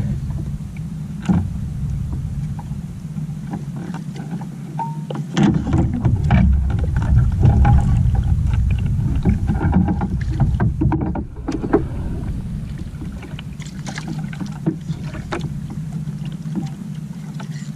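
Water sloshing against the hull of a small outrigger canoe, with a steady low rumble of wind on the microphone and scattered knocks and clicks from handling the rod and line while a hooked fish is brought alongside.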